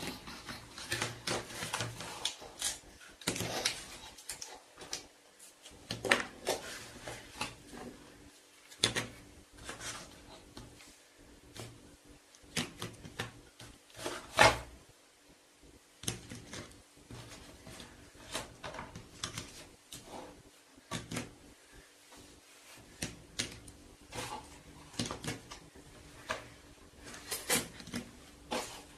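Small plastic Play-Doh tubs being handled: lids pulled off and snapped on, tubs clacking as they are set down and shuffled in the box. An irregular run of light clicks and knocks, with one sharper knock about midway.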